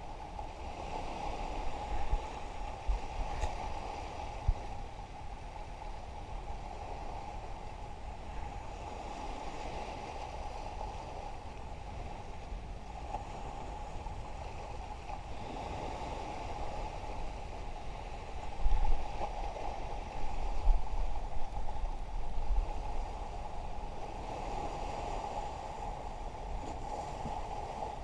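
Small waves washing and lapping against breakwater rocks, with wind buffeting the microphone in low gusts that are heaviest a little past the middle.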